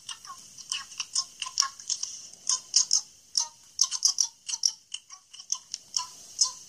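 Light, sharp clicks and ticks, irregular at two to four a second, like small hard objects being tapped or clicked.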